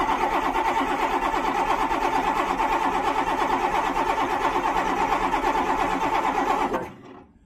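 Starter cranking a Cummins 6BT six-cylinder diesel in an even, pulsing rhythm for about seven seconds, then stopping without the engine catching. The injector lines are cracked loose, so the cranking is bleeding air and water-contaminated fuel through the fuel system after the engine sat underwater.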